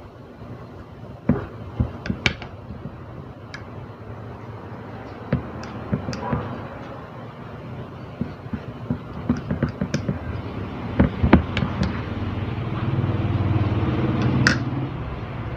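Scattered light clicks and taps of fingers and eggplant skin against a ceramic plate as the charred skin is peeled off grilled eggplants. A low engine-like hum swells near the end.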